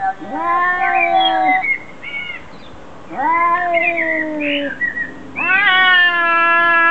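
Two cats in a face-off trading long, drawn-out yowls, a threat display. There are three long, wavering howls, each slowly falling in pitch, with a short cry between the first two. The last howl starts about halfway through and is still going at the end.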